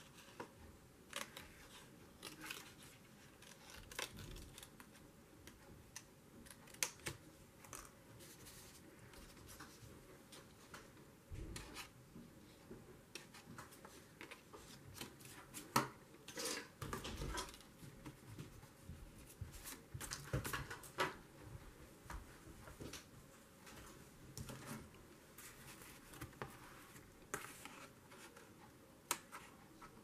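Small scissors snipping a paper tab in scattered short snips and clicks, with quieter paper-handling noise in between.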